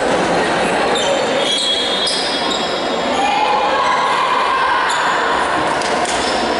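Echoing sports-hall noise between volleyball rallies: indistinct voices over steady reverberant din, with short high squeaks from the court floor.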